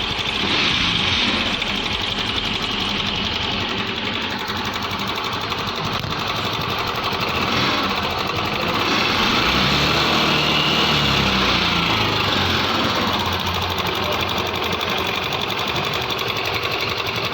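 TVS Jupiter 125 BS6 scooter engine running with a rattling engine noise, revved up and back down once about nine to twelve seconds in. The noise is from a loose timing (cam) chain whose tensioner has worn too short to take up the slack.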